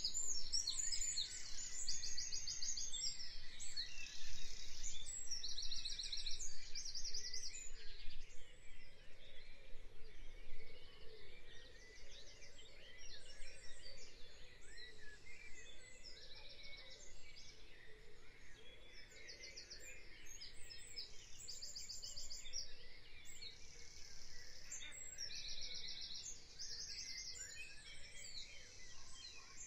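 Birds chirping and trilling in quick repeated phrases over a faint outdoor hiss, busier and louder in the first several seconds.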